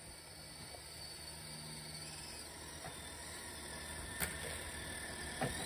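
Traxxas TRX-4 RC truck on Traxx tracks running as it tows a child on a sled over snow: a faint, steady electric-motor and track whir that grows slowly louder. Two sharp clicks come near the end.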